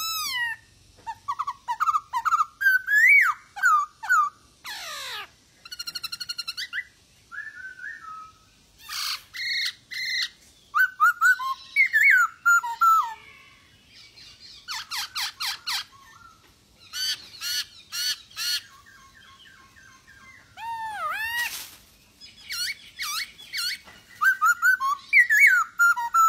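Black-throated laughingthrush (poksay hongkong) singing persistently. Its song is a varied string of loud, clear whistled notes that glide up and down, mixed with fast rattling trills and harsh notes, with short pauses between phrases.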